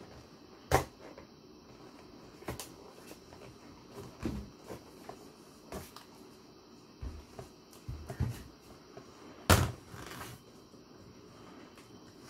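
Handling noise: a series of knocks and thumps as a cardboard toy box and a large plastic action figure are moved about and set down on a table. Two sharp thumps, about a second in and near the end, stand out above smaller taps and bumps.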